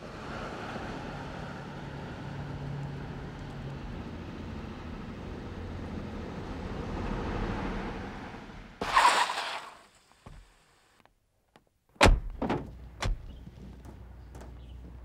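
A car drives up with a steady engine and tyre noise that swells, then stops with a short loud burst about nine seconds in. After a moment's hush a car door opens with a sharp thunk, followed by a few smaller clicks and knocks.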